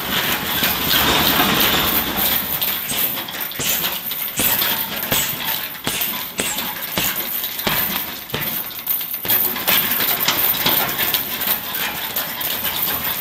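Irregular thuds and slaps of strikes landing on a heavy punching bag, several sharp hits a few seconds apart over steady gym noise.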